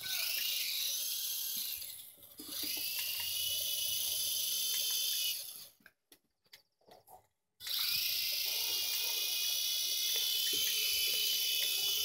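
Small toy remote-control helicopter's electric rotor motors whirring with a high-pitched whine. It drops out briefly about two seconds in, stops for about two seconds a little past the middle, then spins up again and runs steadily.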